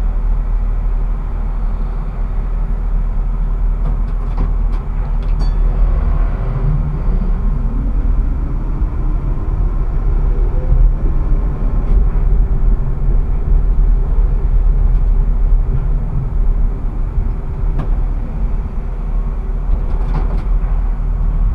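Tram heard from the driver's cab: a steady low rumble, with the electric traction motor's whine rising in pitch from about six seconds in as the tram pulls away and gathers speed. A few light clicks come near the start and near the end.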